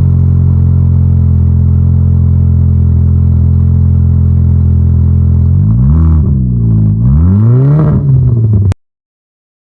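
Exhaust of a 2008 Audi A4 with the mufflers deleted: the engine idles steadily, then is revved twice in quick blips, and the sound cuts off suddenly near the end.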